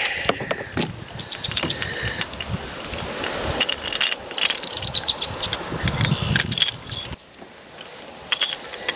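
Fishing reel clicking and whirring as it is worked, mixed with knocks and rattles of tackle being handled; quieter for a moment near the end.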